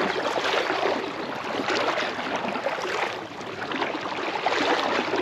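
River water splashing and gurgling close by, a continuous uneven rush with many small splashes.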